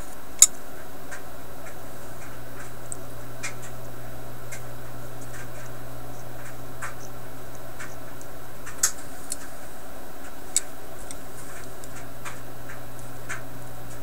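Small sharp clicks and ticks of metal tools and parts as a radio power switch is handled and reassembled by hand, with three louder clicks, one just after the start and two past the middle, over a steady low hum.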